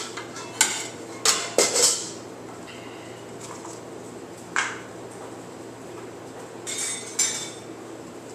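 Kitchenware being handled on a stainless steel counter: sharp clinks and knocks, four in quick succession in the first two seconds, a single one near the middle, and a short cluster near the end.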